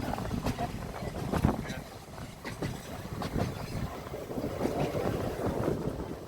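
Seaton Tramway narrow-gauge tram running along its track, with a steady rumble and irregular knocks and clatter from the wheels and car. Wind buffets the microphone.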